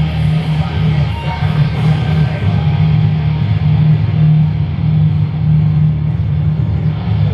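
Rock music with heavy electric guitar and bass, played loud and continuous.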